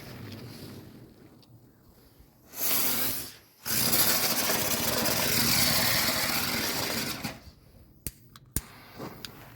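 Ground-spinning hummer fireworks whirling with a buzzing hiss: a quieter buzz at first, then a loud hissing whine that starts after about two and a half seconds, breaks off briefly and runs for another three and a half seconds. Two sharp cracks follow near the end.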